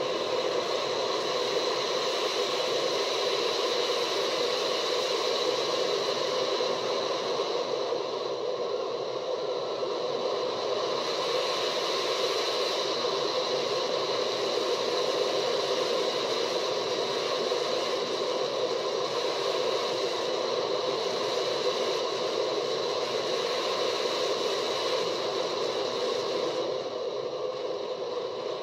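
Intimidator 305 roller coaster on-ride audio: a steady rush of wind and track noise as the train runs through its course, played back through a screen's speaker and re-recorded, with no screams or music.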